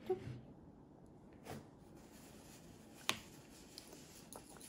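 A few light clicks of a child's metal fork and spoon against a ceramic bowl while eating, spaced about a second and a half apart, the loudest about three seconds in.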